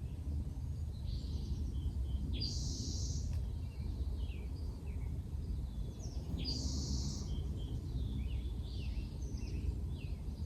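A songbird sings a bright phrase about every four seconds, with fainter chirps between, over a steady low rumble of outdoor background noise.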